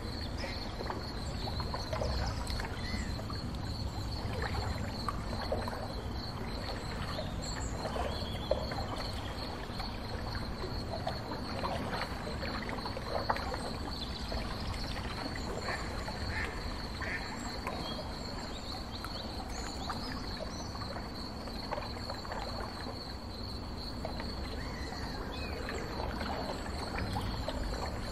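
A boat under way on the river: a steady low rumble, with a faint steady high whine and scattered short chirps and clicks over it.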